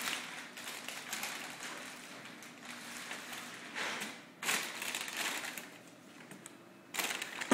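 Plastic carrier bags and paper food packaging crinkling and rustling as takeaway food is unpacked by hand. There are louder bursts of rustling about four and a half seconds in and again near the end.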